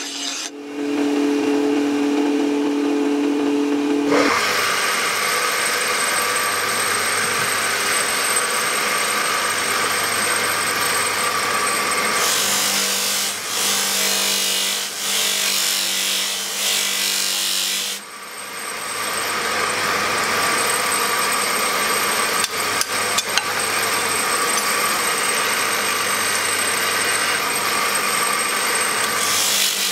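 Steel knife blade ground against a motor-driven abrasive grinding wheel: a steady rasping grind with a high whine, changing abruptly a few times.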